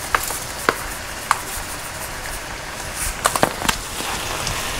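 Sliced bell peppers and onions sizzling in oil and butter in a frying pan, a steady hiss with scattered sharp pops and crackles, several in a quick cluster about three seconds in.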